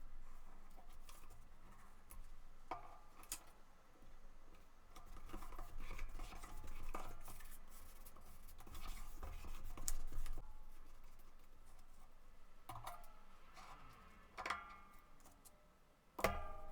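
Paper being handled and cut with scissors: rustling and snipping with many small sharp clicks. A louder click with a short ring comes near the end.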